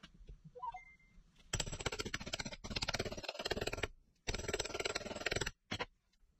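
Hammer rapidly tapping a chrome seal driver to drive a new pinion seal into the nose of a Land Cruiser HJ45 rear differential housing. The taps come in two quick runs, with a short pause between them, and end with a brief last burst.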